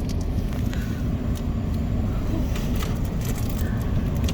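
Vehicle cabin noise while driving slowly over a rough, rutted dirt road: a steady low rumble of engine and tyres, with scattered knocks and rattles as the vehicle jolts.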